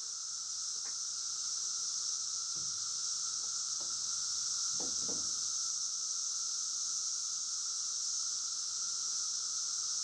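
Honeybees at a hive entrance, a few brief buzzes as bees fly past the microphone, over a steady high-pitched hiss with a fainter steady tone beneath it.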